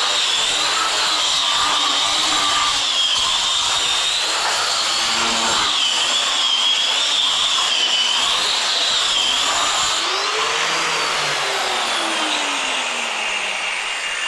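Angle grinder fitted with a cup grinding wheel, running steadily against the floor to rough up the surface before waterproofing; its high whine wavers up and down as the load changes. About ten seconds in, a tone slides downward.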